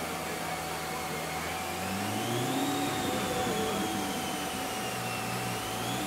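2008 Corvette Z06's 7.0-litre LS7 V8 running on a chassis dyno together with the whirring dyno rollers. The pitch rises about two seconds in, eases down, and climbs again near the end, over a steady whine.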